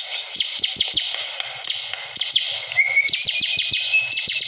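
Bar-winged prinia (ciblek) singing a rapid, unbroken chattering song of quick, sharp, high notes, with a thin held whistle that begins about three seconds in.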